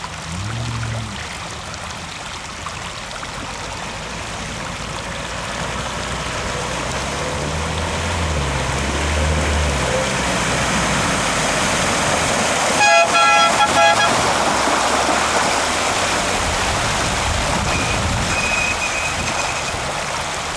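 Land Rover Defender 90 engine revving up and down as it drives through a water splash, with a broad rush of churned water building up and staying loud. About two-thirds of the way in a vehicle horn toots in a few quick blasts.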